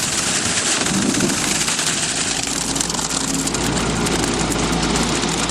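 Engine of a self-loading concrete mixer truck running steadily.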